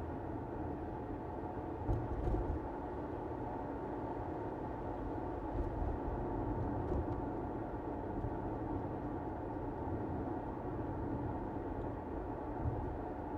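Car driving on a road: steady tyre and road rumble, with a few brief low bumps.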